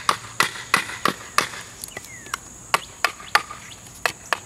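Wooden baton striking the spine of a Glock field knife (the Glock 78, carbon-steel blade) to drive it down through a piece of hardwood. A rapid run of sharp wooden knocks, about three a second, pauses briefly midway and then picks up again.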